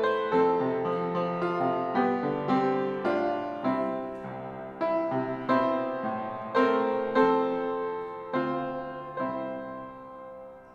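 Piano playing a hymn introduction: chords struck one after another and left to ring, softening and dying away near the end.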